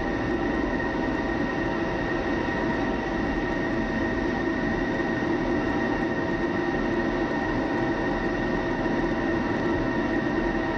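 Steady cockpit noise inside an F-16 fighter in flight: a constant rumble of engine and airflow with a high, steady whine and a lower hum laid over it.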